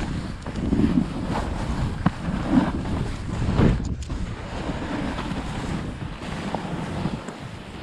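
Snowboard sliding through deep powder, a rushing hiss that rises and falls from turn to turn, with wind buffeting the GoPro's microphone.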